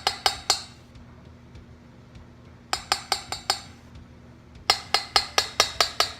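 A kitchen utensil knocking against a bowl in three quick runs of sharp clinks, about five a second, as shaving cream is worked out into the bowl.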